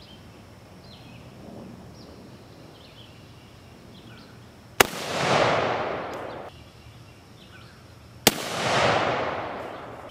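Two rifle shots from a Maadi AK-47 firing 7.62x39 hollow points, about three and a half seconds apart, each a sharp crack followed by a long rolling echo of about a second and a half.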